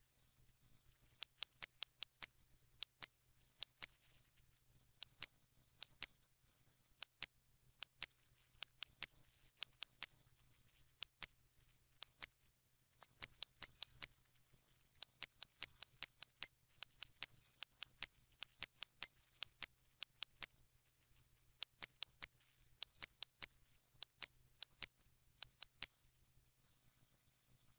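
Computer mouse clicking: irregular runs of short, sharp clicks, some in quick pairs, over a faint steady low hum.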